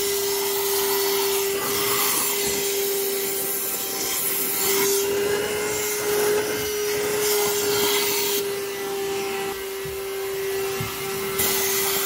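VacLife VL726 cordless handheld vacuum cleaner running, a steady motor whine under a suction hiss that rises and falls as the crevice nozzle is moved along the baseboard and wood floor.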